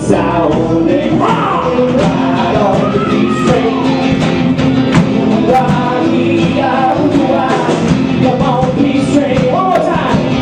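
Live band of acoustic guitars, bass guitar and drums playing a steady rock groove, with a voice singing over it.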